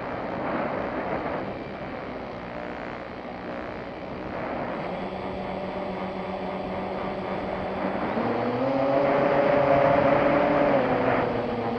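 Radio-controlled model airplane's motor and propeller buzzing, over wind rush on its onboard camera's microphone. About eight seconds in the pitch rises and the sound gets louder, holds, then drops back near the end.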